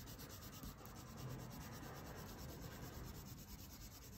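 Wax crayon scribbling on paper in quick back-and-forth strokes, a faint continuous rubbing.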